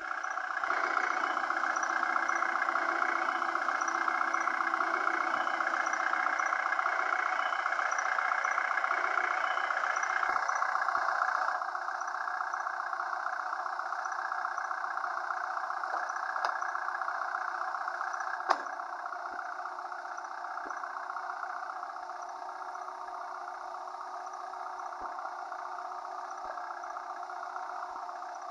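Vehicle engine running steadily, louder for the first ten seconds or so and then dropping back a step. A single sharp click comes about two-thirds of the way through.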